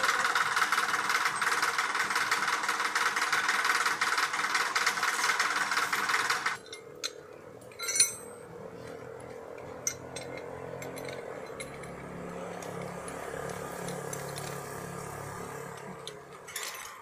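A loud, steady rushing noise that cuts off abruptly about six and a half seconds in. Then, much quieter, steel turnbuckles and shackles on a guy-wire anchor being handled, with a sharp metal clink, another click about two seconds later, and a low hum behind.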